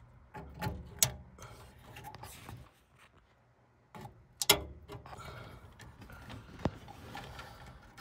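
A replacement furnace control board being pressed onto its plastic mounting standoffs: several sharp plastic clicks and snaps, the loudest about four and a half seconds in, amid rubbing and rustling of the wires as the hand works among them.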